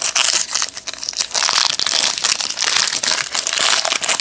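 Wrapper of a trading card pack crinkling continuously as it is handled and opened.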